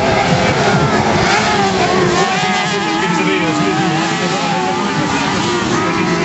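Several crosscar buggy engines revving as the cars race around a dirt track, their pitches rising and falling and overlapping.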